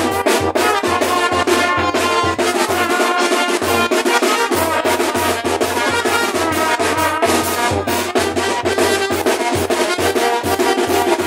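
Brass band with drums playing a lively dance tune over a steady beat.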